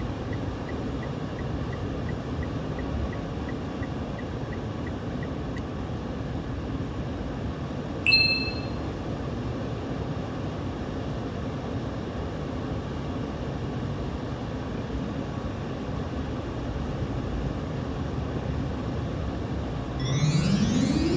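Steady low rumble of a car on the move, with a faint quick ticking in the first few seconds and one short electronic beep about eight seconds in. A rising electronic sweep comes in near the end.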